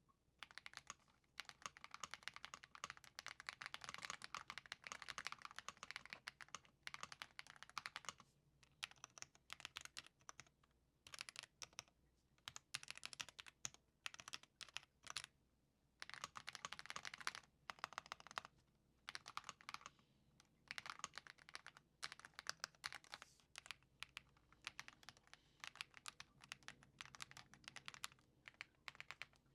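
Typing on an Ajazz AK980 mechanical keyboard with Gift V2 switches and Womier keycaps, a creamy keyboard sound. Fast runs of keystrokes come in bursts of a second or two, with short pauses between them.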